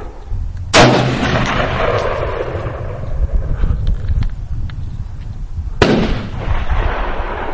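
Two shots from an AR-15-style rifle, about five seconds apart, each a sharp crack followed by a long echoing tail.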